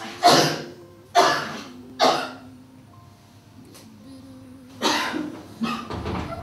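A woman coughing harshly in fits: three hard coughs about a second apart, a pause of a couple of seconds, then two more.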